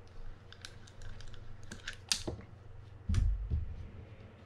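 Light clicks and taps of small metal parts as a Mitchell 302 spinning reel is being taken apart by hand, with a heavier dull knock a little after three seconds in.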